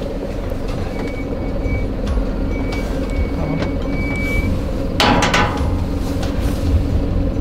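Car engine running at low speed, a steady low rumble, with one sharp clink or knock about five seconds in. A faint thin high tone comes and goes several times in the first half.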